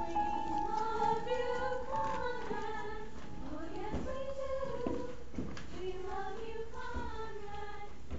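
A group of girls' voices singing as they move off the stage, with a few footsteps knocking on the stage floor.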